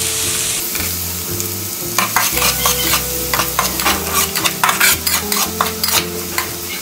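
Minced garlic sizzling in hot oil in an aluminium wok, stirred with a metal spatula that scrapes and taps the pan. The scrapes come thick and fast from about two seconds in.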